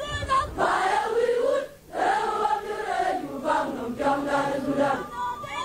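A crowd of voices chanting together in unison in phrased lines, with a brief pause just before two seconds in.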